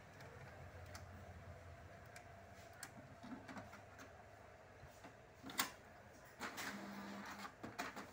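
Faint scattered clicks and taps over a faint steady hum. The sharpest click comes a little past halfway, and a few more cluster near the end.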